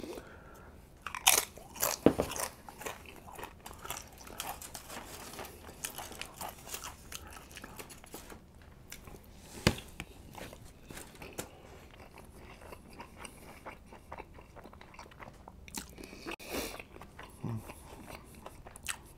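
A person biting and chewing crunchy tortilla chips with guacamole: a run of crisp crunches, loudest about one and two seconds in and again near ten seconds, with softer chewing between.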